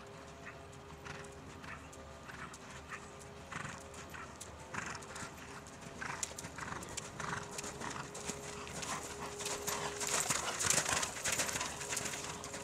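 Hoofbeats of a Hanoverian mare cantering on a sand arena's footing, a regular rhythm of soft strikes that grows louder as she comes close, loudest near the end.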